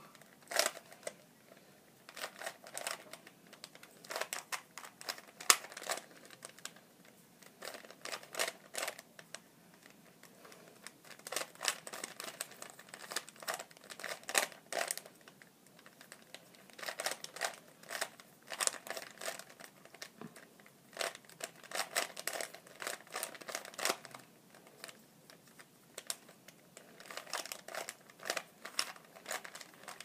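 Plastic 3x3 Rubik's Cube being turned fast during a speed solve: rapid clicking and clacking of the layers, in quick bursts of turns with short pauses between them.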